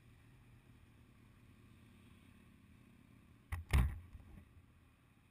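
Motorcycle engine idling steadily while stopped, with two sharp knocks about three and a half seconds in, the second the louder.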